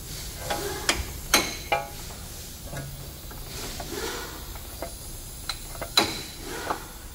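A rusty wheel hub bearing on a removed steering knuckle being turned and handled by hand: scattered sharp metallic clicks and knocks, some with a brief ring, the loudest about a second and a half in and near the end, over a steady hiss.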